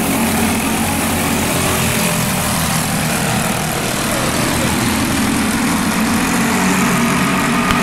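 Racing go-kart engines running hard during a feature race, a steady drone whose pitch rises and falls a little as the karts work through the laps.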